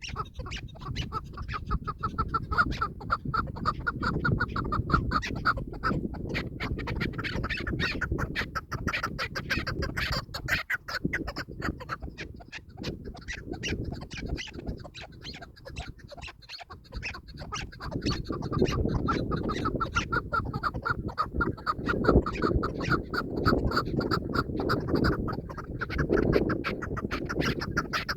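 Chukar partridge calling: long runs of quick, evenly repeated clucking notes that fade in the middle and build again later, over a low rumbling noise.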